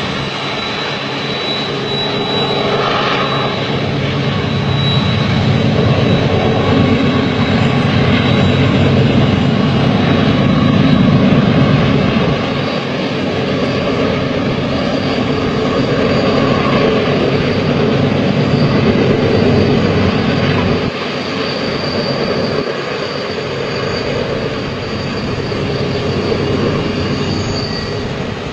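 Long double-stack container freight train running, a steady rumble of locomotives and rolling wagons that swells through the middle and eases after about twenty seconds.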